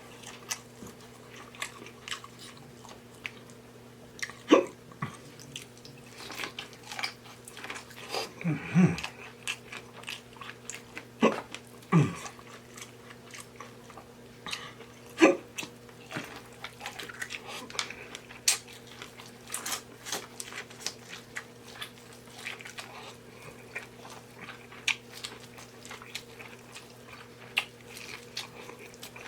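Close-miked chewing, biting and lip-smacking as a person eats a seafood boil, with irregular wet clicks and a few louder snaps. A steady low hum runs underneath.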